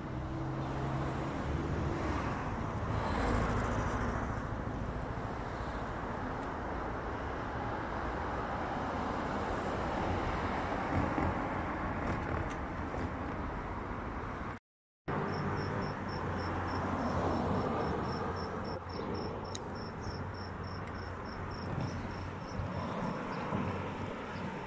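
Street traffic noise: car engines running and cars passing on the road, broken off briefly near the middle. In the second half a fast, even, high-pitched chirp repeats about three or four times a second for several seconds.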